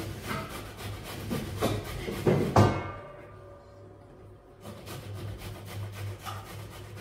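Food being grated by hand on a small metal grater: repeated rasping strokes about three a second, pausing for a second or two midway and then starting again.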